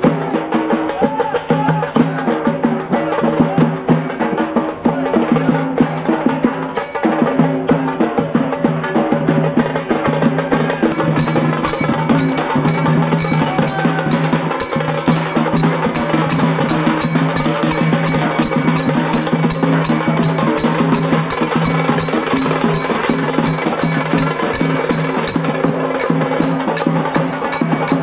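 Nashik dhol troupe drumming a loud, fast, steady rhythm on dhols and tashas. The strokes turn sharper and brighter about eleven seconds in.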